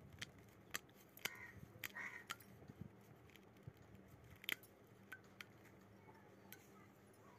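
Near silence with faint, scattered clicks and light taps from hands working a wooden yarn-flower loom, pushing the wool loops off its metal pins.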